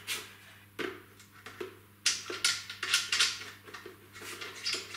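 Hands handling an Einhell oil-free air compressor's plastic housing: a run of short knocks and scrapes, busiest about halfway through. The compressor is not running.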